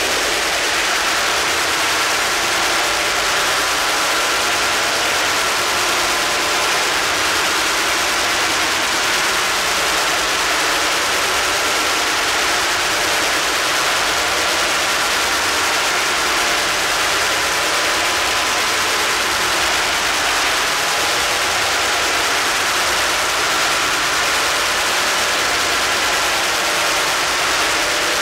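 Harsh noise music from electronic feedback: a dense, unchanging wall of hissing noise with a faint, slightly wavering high tone running through it.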